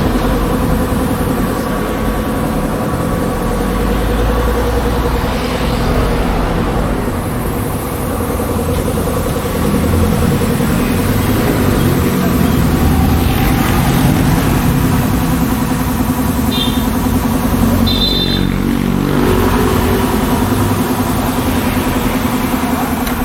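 Motor vehicle engines running steadily, motorcycle and street traffic noise, with two brief high squeaks about sixteen and eighteen seconds in.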